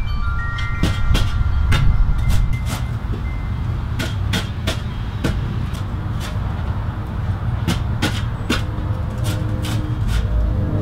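Shovel digging and chopping into dry, cloddy soil, making irregular sharp clicks and scrapes about once or twice a second over a steady low rumble. A few short ringing tones sound in the first few seconds.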